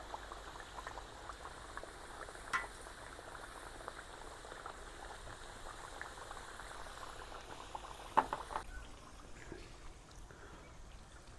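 Sliced potatoes deep-frying in hot oil in a disco pan, the oil bubbling and crackling steadily, with a short knock about eight seconds in.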